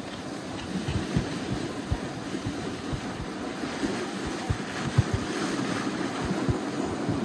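A dog sled running over glacier snow: a steady rushing hiss from the runners sliding on the trail, with irregular low thumps as the sled bumps along.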